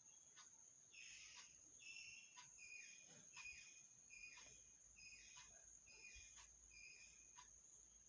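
Faint insect background: a steady high cricket trill. Through most of it runs a series of short pitched chirps repeated a little under once a second, with faint ticks about once a second.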